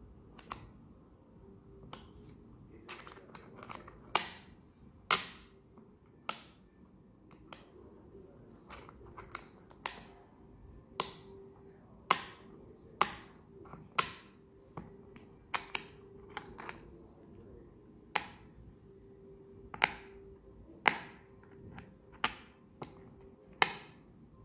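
Short, sharp clicks of small steel screwdriver bits being handled one by one in the slots of the Xiaomi Mijia Wiha precision screwdriver case, roughly one a second and irregular, about two dozen in all.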